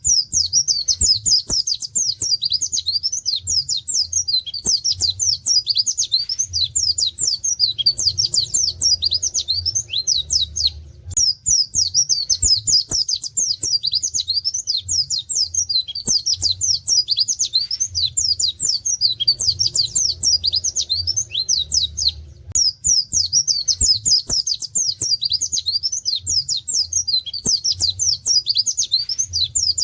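White-eye (pleci) singing a long, fast, high-pitched song of quick sweeping notes with canary-like 'wit wit' bursts, broken by short pauses about 11 and 22 seconds in.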